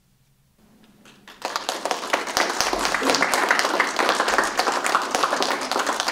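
Audience applauding a finished talk: clapping begins about a second in, swells within half a second and holds steady and loud.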